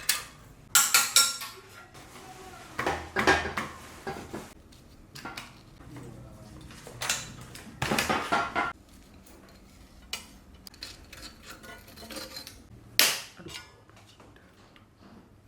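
Metal tools and bicycle parts clinking and clattering in several separate bursts, each with a short metallic ring.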